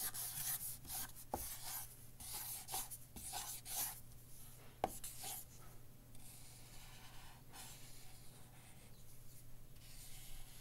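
Writing on paper by hand: irregular scratchy pen strokes, busiest in the first few seconds and fainter after, with a couple of sharp taps.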